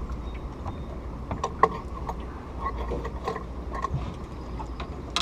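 Scattered light clicks and knocks of fishing tackle and gear being handled in a boat, with one sharp knock about one and a half seconds in, over a steady low rumble.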